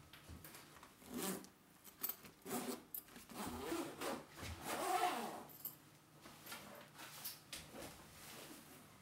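A soft guitar gig bag being unzipped and handled: several short, jerky zipper pulls and fabric rubbing with a few clicks, loudest about five seconds in.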